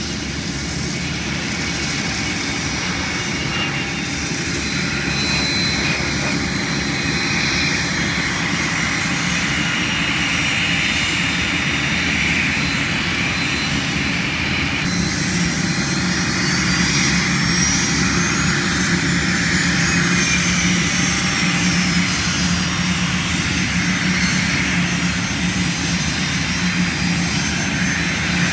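Business jet turbofan engines running with a steady high whine. About halfway the sound changes abruptly, and a high whine rises and then falls in pitch as a jet moves past.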